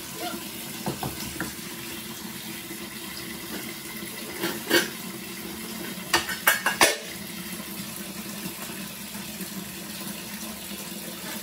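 Water running from a wall tap and splashing into a partly filled plastic tub, with a few sharp clinks and knocks of a metal pot being handled, the loudest cluster about six to seven seconds in.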